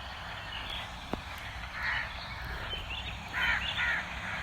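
Short, harsh animal calls repeated a few times, about two seconds in and again near the end, over a steady low hum. There is a single sharp click just after a second in.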